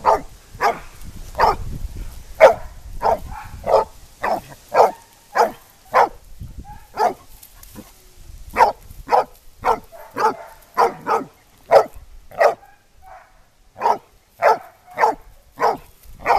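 Black mouth cur dog baying a pig: repeated sharp barks, about one to two a second, with a short pause about three-quarters of the way through.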